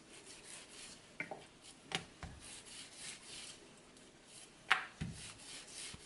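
Wooden rolling pin rolling out a round of puri dough: a soft rubbing swish back and forth, with a few light wooden knocks as the pin touches down. The loudest knock comes about three quarters of the way through.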